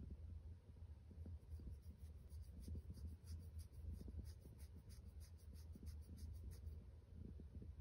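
Domestic cat purring in a low, continuous rumble, a sign of contentment as it is rubbed. Over the purr, a plastic drinking straw brushes against the fur of its face in quick, rhythmic, scratchy strokes, from about a second and a half in until shortly before the end.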